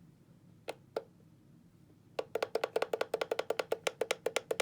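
Alarm clock's buttons clicking: two single presses, then about two seconds in a rapid even run of clicks, roughly ten a second, as the time is being set.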